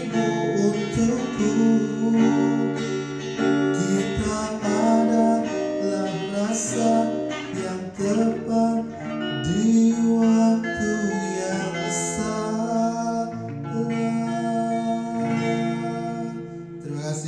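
Acoustic guitar strummed and picked, accompanying a man singing a ballad live.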